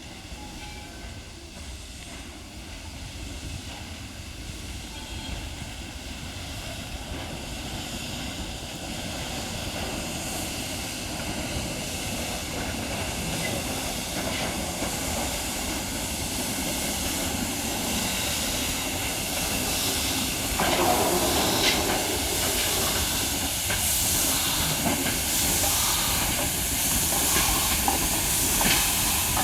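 Steam tank locomotive 141 TB 424 (a 2-8-2T) hissing steam, growing steadily louder as it comes closer, with a stronger rush of steam about twenty seconds in.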